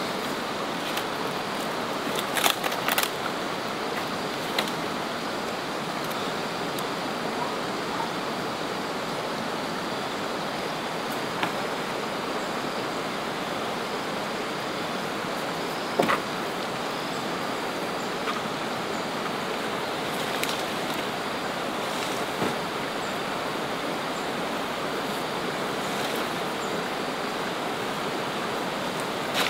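Steady rushing outdoor background noise with scattered sharp knocks of wooden poles being handled and set in place on a pole platform.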